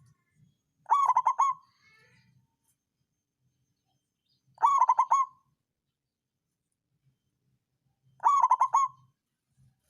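Zebra dove (perkutut) cooing three times, each call a short run of quick notes, about three and a half seconds apart.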